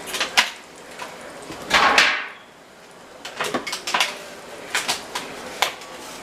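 Kitchen clatter: a series of sharp knocks and clicks, like cupboard doors and utensils being handled, with a louder rushing burst about two seconds in that fades away.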